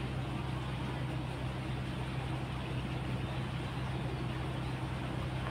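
Steady low hum of a running motor, one constant drone that does not change.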